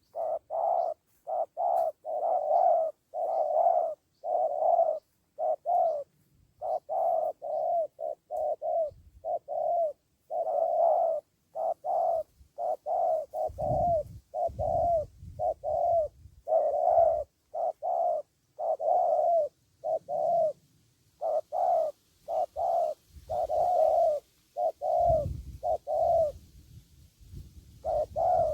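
Spotted dove cooing over and over, short coo notes about twice a second with only brief pauses. A low rumble comes in twice, about halfway and near the end.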